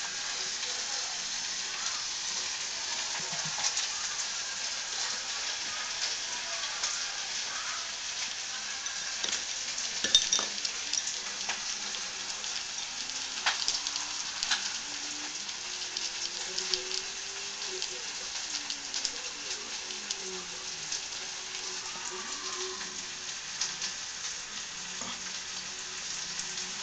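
A skunk chewing strawberry, with small wet clicks and smacks scattered over a steady hiss; a few louder clicks come about ten and fourteen seconds in.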